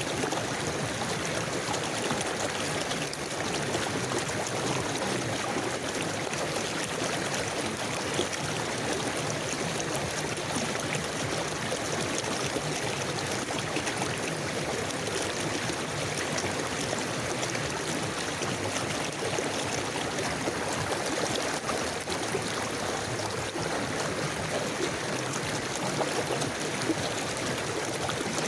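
River water flowing steadily over stones, a continuous rushing and trickling.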